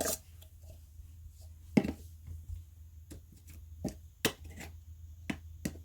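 Scattered clicks and knocks of objects being handled and set down, about eight in all, the loudest near two seconds and four seconds in, over a low steady hum.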